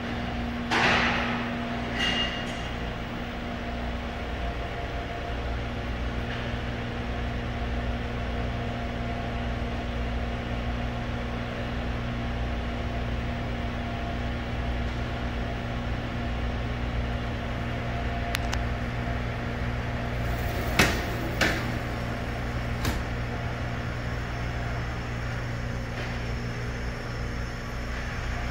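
Steady hum of a powered-on Haas EC-630 horizontal machining center standing idle, with a few sharp clicks and knocks: one about a second in, one about two seconds in, and a cluster about two-thirds of the way through, two of them close together.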